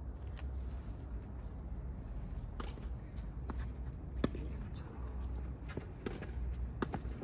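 A tennis ball struck by rackets in a doubles rally: several sharp pops a second or two apart, the loudest about four seconds in, over a steady low rumble.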